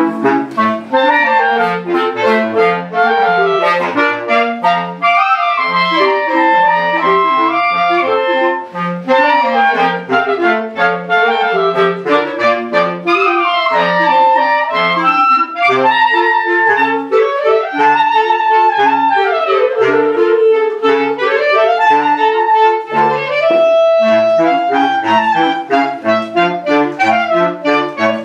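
Live clarinet ensemble playing: a low bass line of short, detached notes under a running melody, which slides down and back up about two-thirds of the way through.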